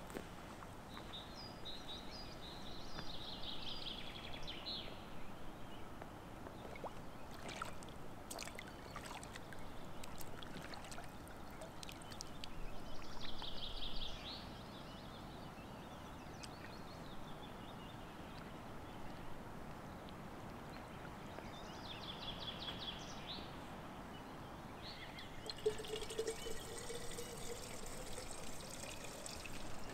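Water trickling and gurgling as a bottle is filled at the lake's edge, in three short bouts; the middle one grows louder and stops abruptly.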